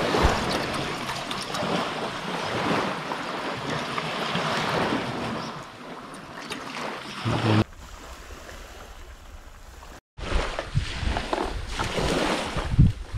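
Water poured from a plastic bottle into a metal camping pot, a steady splashing pour lasting about five seconds. After it, quieter outdoor ambience with a short thump and, near the end, wind buffeting the microphone.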